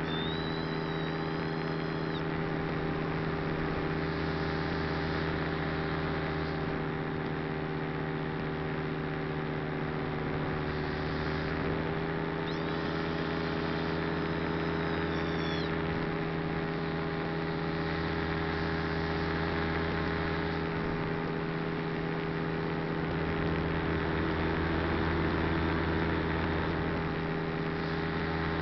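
Model aircraft's motor and propeller running steadily, heard up close from on board: a constant drone of steady tones, with a thin high whine that wavers near the start and again about twelve seconds in.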